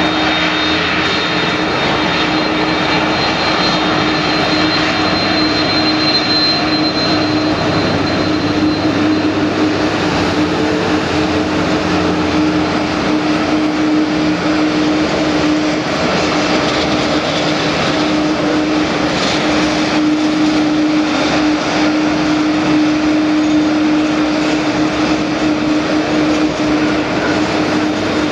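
Airbus A300-600R's twin turbofan jet engines running at low taxi thrust as the airliner taxis: a continuous loud jet noise with a steady hum, and a high whine that fades about a third of the way through.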